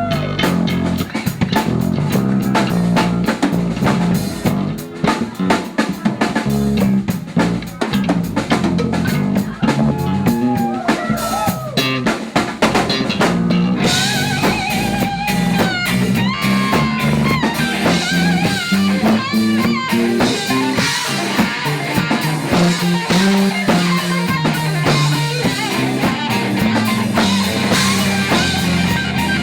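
Rock band playing an instrumental passage: guitar with bending, gliding notes over a drum kit, the sound growing fuller and brighter about halfway through.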